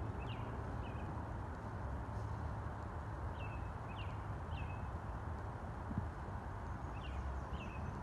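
A bird calling in short, high, falling notes, three at a time about half a second apart, with each group coming about every three and a half seconds. Under the calls is a steady low background noise.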